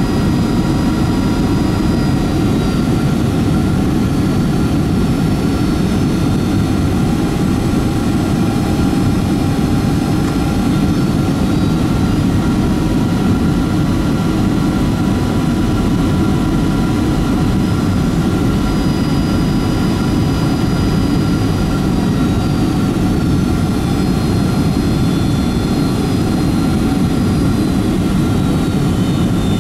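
Steady cabin roar of a Boeing 757-223 with Rolls-Royce RB211 engines on final approach, heard from inside the cabin: a deep even rumble with faint high whining tones, some drifting slightly in pitch.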